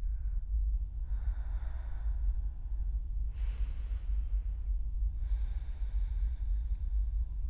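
Three long, slow breaths by a person, spaced about two seconds apart, over a steady low rumble.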